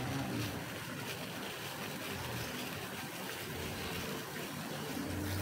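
Vegetables, crab and coconut milk simmering in a wok: a steady hiss with faint small bubbling pops.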